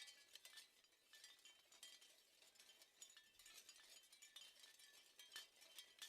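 Wind chimes stirred by the wind, faintly tinkling with many quick, irregular strikes that each ring briefly.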